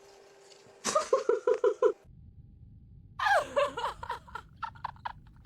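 A person laughing: a quick run of high-pitched laughs, then after a short pause a falling cry that breaks into more laughter.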